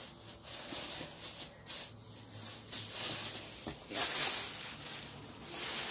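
Rustling and handling noise as items from a shopping haul are rummaged through and picked up, with a sharp click or tap about two-thirds of the way in.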